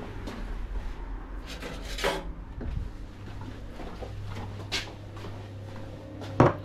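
Handling noises of a worker walking and carrying two ceramic espresso cups: rubbing and shuffling with a few knocks, the sharpest and loudest near the end. A steady low hum runs underneath.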